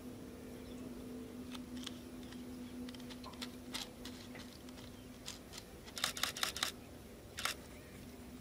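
Faint scattered clicks and ticks, with a quick run of about five around six seconds in, over a low steady hum: handling and lens noise picked up by a DSLR camera's built-in microphone during telephoto filming.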